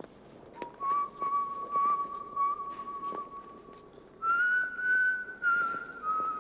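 A man whistling a slow tune in long held notes, stepping up in pitch about four seconds in, over the steady footsteps of hard-soled shoes on pavement.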